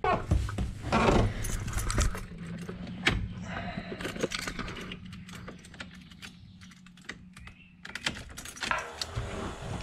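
Keys jangling and a run of sharp clicks and knocks as a person climbs into the driver's seat of a Jeep Grand Wagoneer, with a low steady hum underneath; the clatter thins out in the middle and picks up again near the end.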